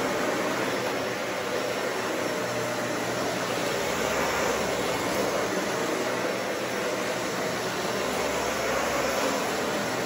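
Dyson Ball Animal 2 upright vacuum cleaner running steadily while it is pushed back and forth over carpet.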